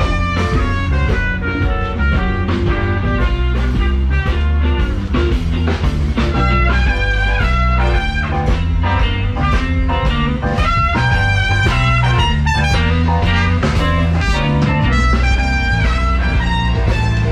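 Loud music with a heavy, moving bass line and a prominent guitar.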